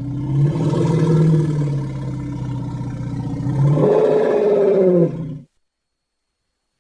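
Kentrosaurus dinosaur roar sound effect: a long, low growling roar that swells louder and higher in pitch about four seconds in, then cuts off suddenly.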